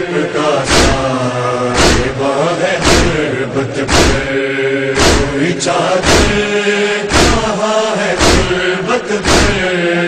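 Group of men chanting an Urdu noha in unison. A loud, sharp unison strike of chest-beating (matam) lands about once a second and keeps the beat.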